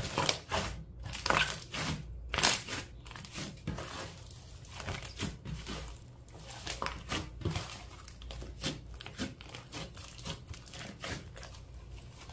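Mixed slime being squished and kneaded, giving a run of irregular crackles and pops, loudest and densest in the first few seconds and sparser after.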